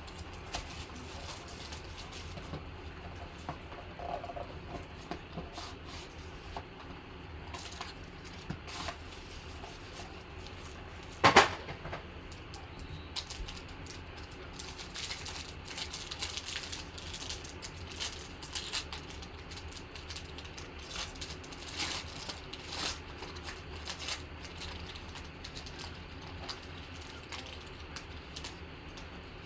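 Scattered handling noises of a sealed trading-card box being opened and its packs handled: rustling, light clicks and taps, with one sharp knock about eleven seconds in, over a faint steady hum.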